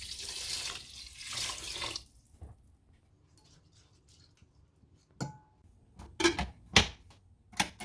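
Kitchen water running for about two seconds, then after a pause a few sharp knocks and clicks of kitchenware, the first with a short ring.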